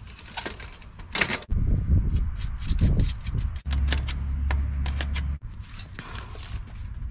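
Metal clicks, clinks and rattles of bicycle repair work as a new seven-speed Shimano freewheel is fitted, heard as several short clips that cut off abruptly one after another.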